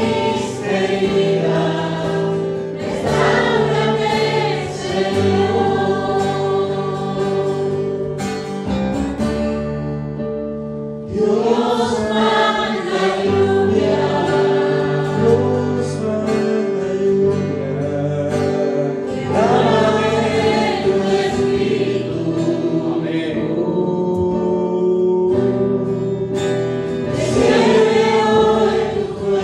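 A choir singing a Spanish-language Christian worship song over steady instrumental backing, in phrases with a short lull near the middle.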